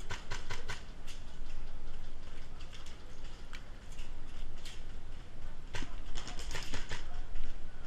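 Airsoft gun firing in short rapid bursts of sharp clicks: one burst at the start, a few scattered shots in the middle and a longer burst about six seconds in.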